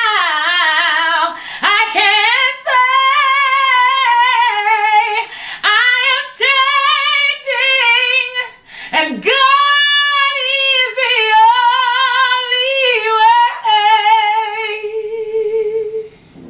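A woman singing solo and unaccompanied in a high voice, holding long notes with a wide vibrato. The song closes on a long held note that fades away near the end.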